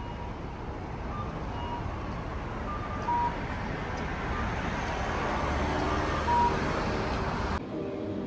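Rumble of road or vehicle noise that grows gradually louder, with a few short high beeps, then cuts off suddenly near the end.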